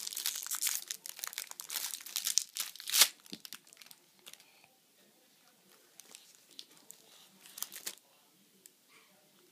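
A toddler's hands crinkling a clear plastic cracker sleeve, densely for about the first three seconds with a sharp, loud crackle near three seconds, then only a few scattered crinkles.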